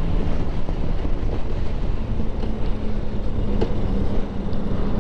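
Wind buffeting the microphone over the steady hum of a 2009 Harley-Davidson Sportster 1200 Low's air-cooled V-twin while cruising at steady speed.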